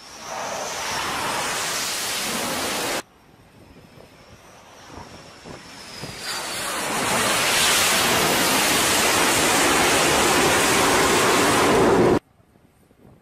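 Fighter jet engines at full thrust during catapult launches off an aircraft carrier's deck. A loud rushing roar in the first three seconds cuts off abruptly. A high turbine whine follows, then a roar that builds from about six seconds in, stays at its loudest, and stops suddenly near the end.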